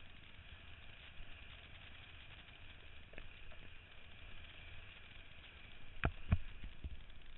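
Wind rumbling on the camera's microphone over the rush of water under a kiteboard skimming across chop. From about six seconds in, a few hard thumps as the board slaps across the waves.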